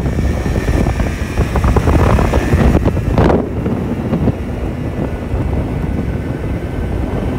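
Wind buffeting the microphone over a steady low rumble, with a brief swell of noise about three seconds in.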